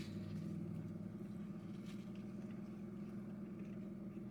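A steady low mechanical hum, with a faint click about two seconds in.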